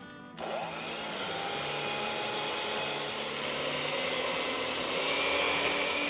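Electric hand mixer switched on about half a second in, its motor whirring up to speed and then running steadily as the beaters whip chilled heavy cream in a glass bowl.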